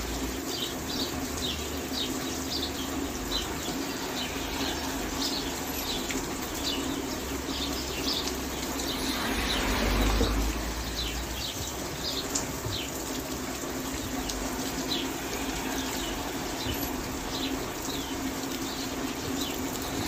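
Steady rain falling, with small birds chirping over it: many short, high chirps, a few a second at irregular times. A steady low hum lies underneath, and the rain swells briefly about halfway.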